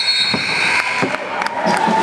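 Gym sounds of a basketball game: spectator chatter under several sharp knocks on the hardwood court, with a steady whistle-like tone coming in about halfway.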